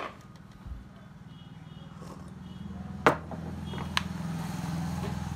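A low droning hum that swells over a few seconds, with two sharp clicks about three and four seconds in.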